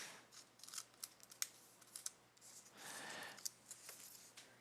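Faint clicks and a soft swishing rustle of trading cards being flipped and slid by hand.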